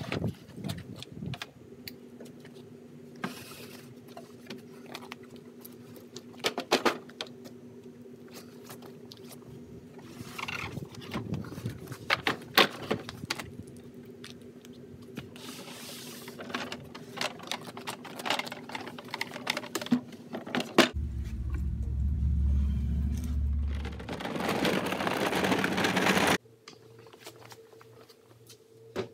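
Wooden knocks, thuds and scrapes of plywood cabinet boxes being lifted and set onto wooden caster dollies, over a steady low hum. About three-quarters of the way through, a louder low rumble and rushing noise runs for about five seconds, then cuts off abruptly to quieter room sound.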